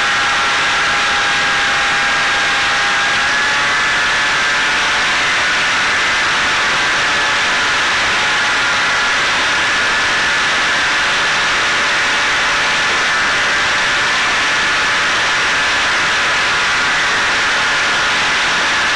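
Electric motor and propeller of a Caipirinha 2 fixed-wing FPV drone in flight, heard through its onboard camera: a steady whine over loud rushing air, the pitch shifting slightly about three seconds in.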